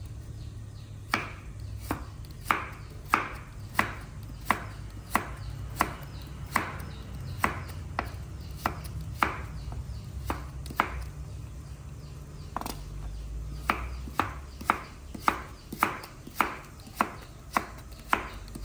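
Kitchen knife slicing carrot into matchsticks on a wooden cutting board: a string of sharp chops about every two-thirds of a second, with a short pause about two-thirds of the way through. A steady low hum sits underneath.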